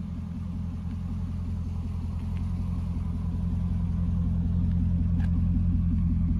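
2005 Chevrolet Corvette's 6.0 L LS2 V8 idling steadily with an even low rumble, growing gradually louder.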